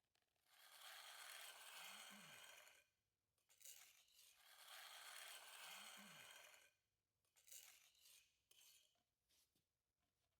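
Two long scraping strokes on a concrete surface, each lasting about two seconds, with a few light ticks and knocks between them and after.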